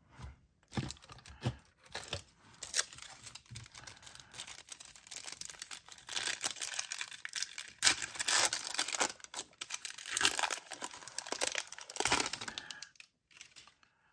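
Foil wrapper of a card pack being torn open and crinkled, dense crackling for several seconds near the middle, after a few light clicks of cards being handled.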